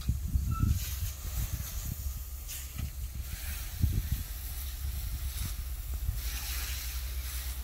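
Wind buffeting the microphone, a steady low rumble with uneven gusts, over a hiss that swells twice.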